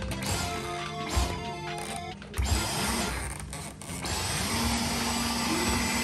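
Cordless stick vacuum cleaner running in short goes: a steady hiss with a low hum comes on for under a second, drops out, then spins up again with a rising hum and keeps running. Background music plays over the first couple of seconds.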